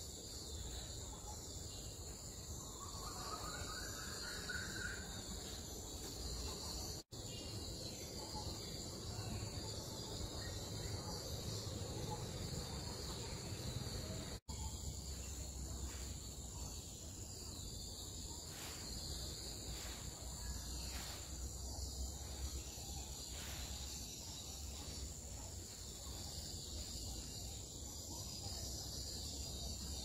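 Steady high-pitched insect chorus over a low outdoor rumble, with a faint short call a few seconds in. The sound cuts out completely for an instant twice, about seven seconds in and again about halfway through.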